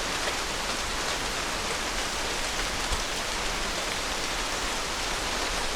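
Steady rain falling, an even hiss of drops, with one sharper tap about three seconds in.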